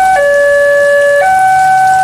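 Railway level-crossing electronic warning alarm, sounding a two-tone signal whose pitch steps between a lower and a higher tone about once a second: the crossing's warning that a train is approaching.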